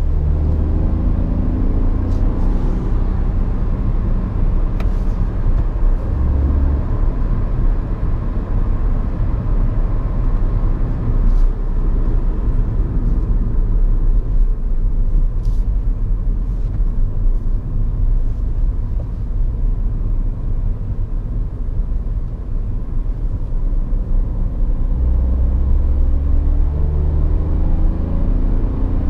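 Hyundai i10's 1.0-litre three-cylinder petrol engine heard from inside the cabin over steady tyre and road noise. The engine note rises in pitch near the start and again in the last few seconds as the car accelerates, with a steadier cruising stretch in between.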